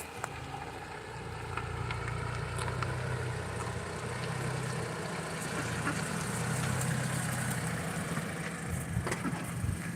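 Low, steady engine hum that swells a little partway through, with faint scattered clicks.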